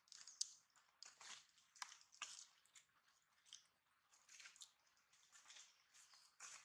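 Faint, irregular crackling and rustling of dry leaf litter and crumpled plastic as monkeys move over the ground and handle things, with a few sharp clicks.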